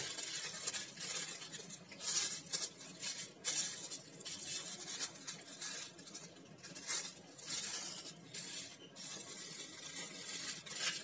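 Aluminium foil crinkling and rustling in irregular crackles as hands fold and press it into a sealed packet.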